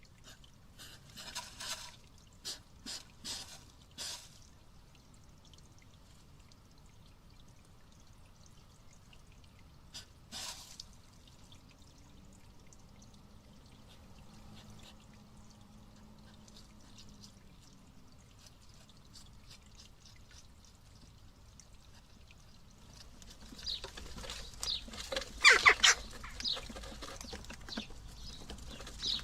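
A hedgehog eating and rummaging in a dish of mealworms: short bursts of sound in a quick run near the start, one more about ten seconds in, and a louder cluster near the end.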